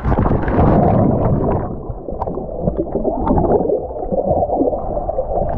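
Rushing, gurgling water heard muffled and churning, as in a ride down a water slide. The rush is brightest in the first second and a half, then dulls to a muffled churn with small knocks and splashes.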